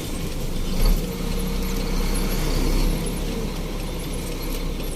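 Truck engine running steadily with a low hum, swelling a little about a second in and easing back near three seconds.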